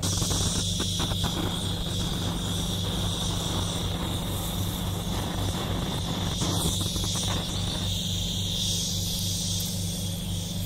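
A steady high-pitched hiss that starts and stops abruptly, over a constant low electrical hum.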